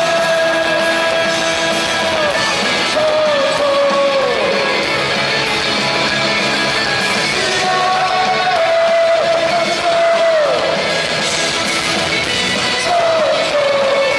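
Punk rock band playing live: electric guitars and drums with singing, long held notes sliding down now and then.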